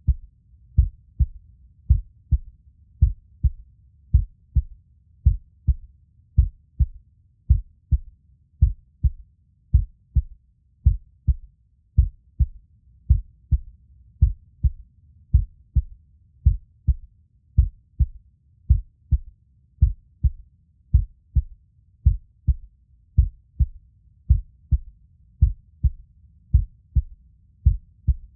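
Human heartbeat recorded up close: a steady, even rhythm of low, dull thuds with a faint low hum between beats.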